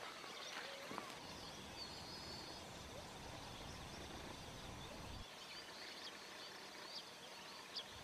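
Faint, scattered short high chirps of small birds, munias (emprit) in the rice, with one brief trill about two seconds in, over a low rumble that stops about five seconds in.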